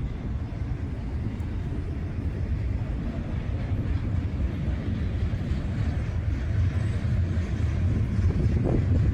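Train passing on the tracks: a steady low rumble that grows a little louder toward the end, with some wind on the microphone.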